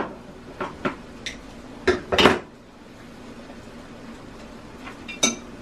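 Sharp metal clicks and clanks from a hand-held can opener working on a small tin can of tomato paste and being put down, with the loudest pair of knocks about two seconds in and a few lighter clicks near the end.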